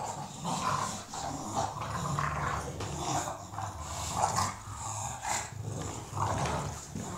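Two English bulldogs growling in play as they tussle and tug at a toy between their mouths. The growls come in rough bursts about once a second over a low rumble.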